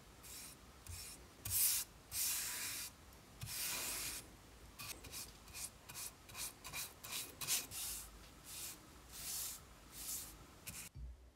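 Paintbrush bristles brushing wood stain onto a wooden axe handle: a few longer swishing strokes at first, then quicker short strokes about two or three a second, stopping shortly before the end.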